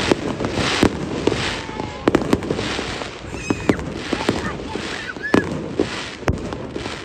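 Aerial fireworks bursting overhead: a rapid, irregular series of sharp bangs over a steady crackling.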